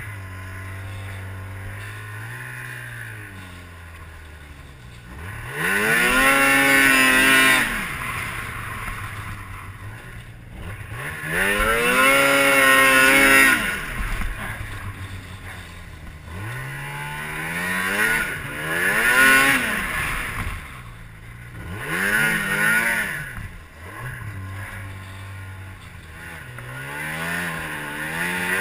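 Ski-Doo MXZ 600 snowmobile's two-stroke twin engine being throttled up and down. About five strong surges each rise in pitch and fall back, with lower running between them.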